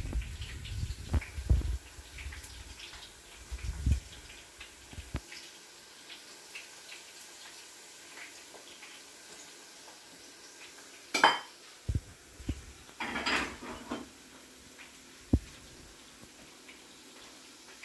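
Kitchen utensils knocking and clinking against pots and dishes: scattered single knocks, the loudest about eleven seconds in, and a short clatter around thirteen seconds. A low rumble runs under the first five seconds and then stops.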